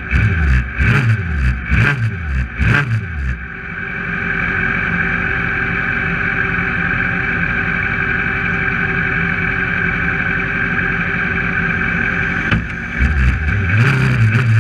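Kart cross's 600 cc motorcycle engine heard from the cockpit while stationary: revved in several quick blips, then held at a steady note for about eight seconds, then blipped rapidly again near the end.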